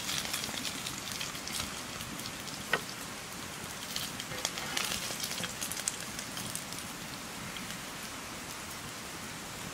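Open wood fire crackling and popping, with one sharp crack about three seconds in; after about six seconds the crackles thin out to a steady hiss.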